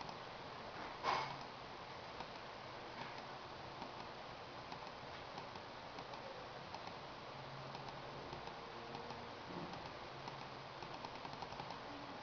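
Steady background hiss with a faint low hum, broken by one sharp click about a second in and scattered light ticks.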